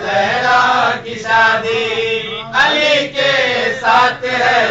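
A man chanting an Urdu manqabat, a devotional poem, in short melodic phrases with brief pauses between them.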